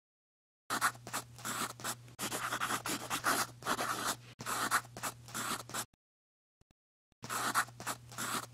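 Marker drawing on a board: a run of quick scratchy strokes beginning just under a second in, a pause of over a second, then more strokes near the end.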